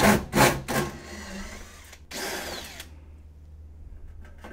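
Cordless drill-driver backing out sheet-metal screws from an air-conditioner chassis panel: three quick short runs in the first second, then one longer run about two seconds in.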